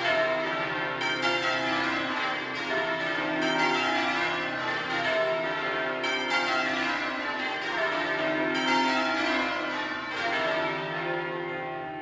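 The ring of twelve Mears and Stainbank church bells (1956, tenor in C) being change rung, with rapid, overlapping strikes in quick succession. About ten seconds in the strikes stop and the bells hum on, fading away.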